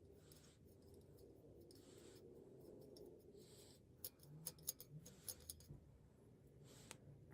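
Near silence with faint handling noises: a few soft scrapes or hisses, and a cluster of small sharp clicks about four to five and a half seconds in.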